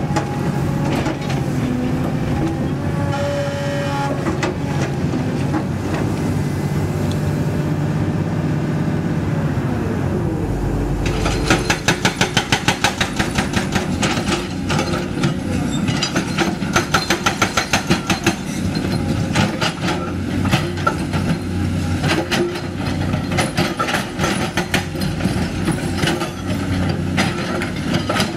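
CAT 320D excavator's diesel engine running with hydraulic whine as the bucket works broken rock. About 11 seconds in, a hydraulic breaker on the excavator's arm starts hammering the rock face in rapid runs of blows a few seconds long.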